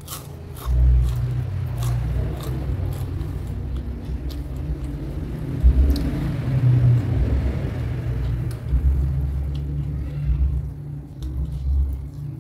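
Close-miked chewing of crunchy raw vegetables: many short crisp crunches over a deep, uneven rumble.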